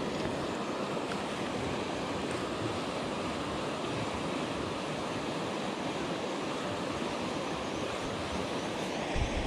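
River rapids rushing: a steady, even hiss of fast-flowing water, with a soft low thump near the end.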